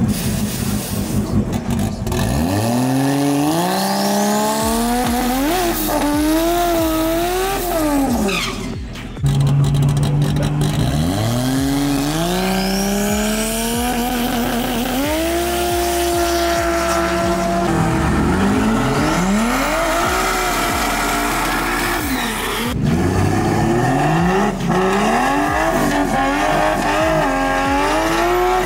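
Toyota JZ straight-six drag cars revving hard and accelerating. The engine pitch climbs, wavers and drops back several times, with an abrupt cut about nine seconds in.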